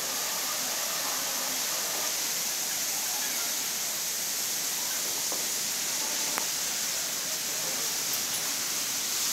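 Heavy cyclone rain falling steadily, a continuous even hiss.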